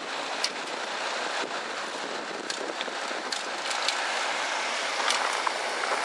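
Wind driving fine snow: a steady hiss with scattered sharp crackles.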